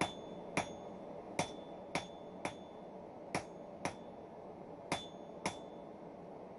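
Hand hammer striking a red-hot bar of 5160 spring steel on an anvil, drawing out the tapered blade of a cold chisel. Nine blows come in twos and threes about half a second apart, each with a short high ring.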